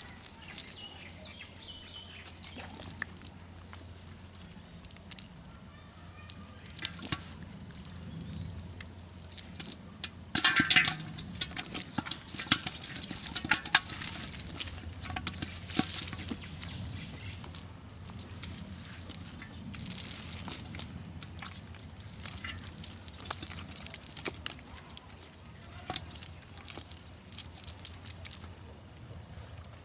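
Live fish being picked by hand out of a wet cast net and dropped into an aluminium pot of water: irregular wet slapping, flapping and rustling of net mesh, in scattered bursts with a few louder clusters.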